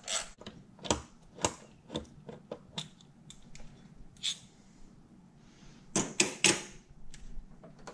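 Ratchet with a 10mm socket and extension clicking in short strokes, about twice a second, as the last bolts of a stock throttle body are backed out; then hand-handling noise as the throttle body comes free, with a few sharper metal clinks about six seconds in.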